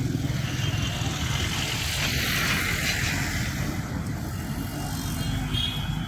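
Road traffic running steadily. A broad hiss swells about two seconds in, as of a vehicle passing close, then fades.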